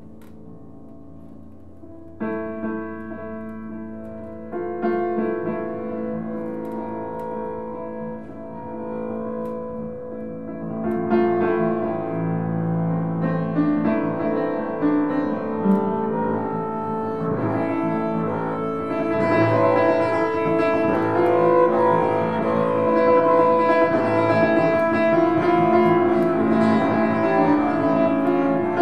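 Upright piano and bowed double bass playing together. Ringing piano chords are struck about two seconds in and again near five seconds. The music grows denser and louder from about eleven seconds, and louder still from about nineteen seconds, with the bass bowed underneath.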